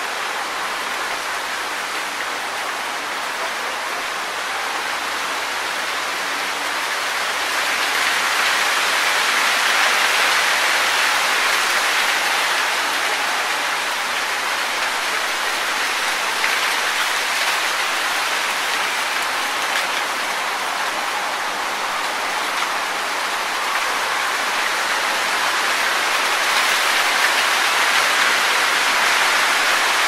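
Wind rustling through tree leaves: a steady hiss that swells in gusts about ten seconds in and again near the end.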